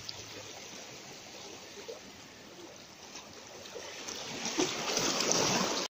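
Seawater washing and lapping against granite rocks, a steady rushing hiss that swells louder about four seconds in and then cuts off abruptly.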